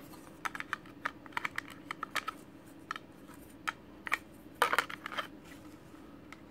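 Light plastic clicks and taps from a small toy wrestling table being handled, irregular, with a louder cluster of clicks a little after halfway.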